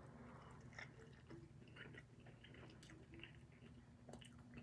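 Faint chewing of a mouthful of breakfast burrito: soft, wet mouth sounds with small clicks, over a low steady hum.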